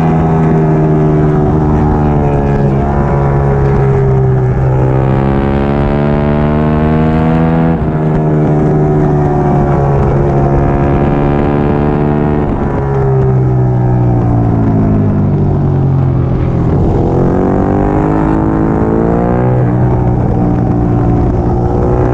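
Triumph Daytona 675R's inline-three engine running hard at racing revs, its pitch stepping up and down through gear changes and sweeping down twice in the middle as it slows for corners, then climbing again.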